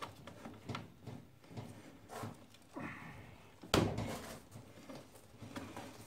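Scattered knocks and clunks from handling the rear wheel and brake caliper of a Yamaha TT250R as they are worked into the swingarm, with one louder knock a little past halfway.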